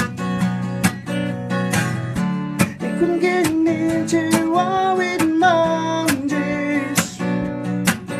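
Acoustic guitar strummed in a steady rhythm, with a voice singing long held notes from about three seconds in until about six seconds in.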